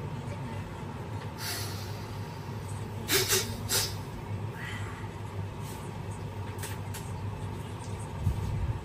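Steady low background hum with a few brief sharp noises, the loudest a cluster about three seconds in.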